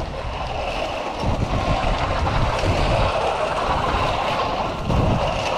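Wind rushing over the microphone together with the steady rumble of a zip coaster trolley running fast along its steel rail.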